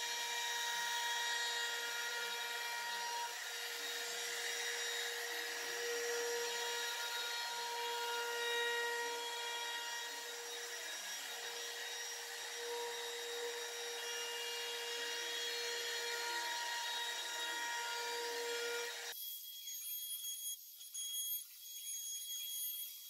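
Makita compact trim router running steadily with a high whine, its bit cutting along the curved edge of a thick walnut frame. About nineteen seconds in, the router sound cuts off abruptly, leaving only faint high-pitched ringing tones.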